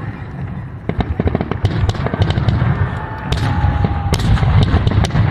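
Fireworks finale: many shells bursting in rapid, overlapping succession, sharp bangs and crackle over a continuous low rumble of booms.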